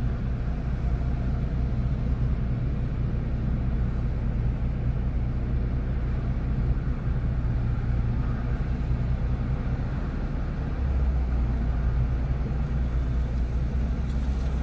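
Steady low rumble of vehicle engines and traffic, with a constant engine hum that grows a little louder about eleven seconds in.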